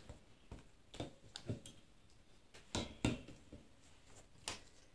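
Faint scattered clicks and soft rustles of an embroidery fabric and its frame being handled, with about half a dozen small ticks spread through.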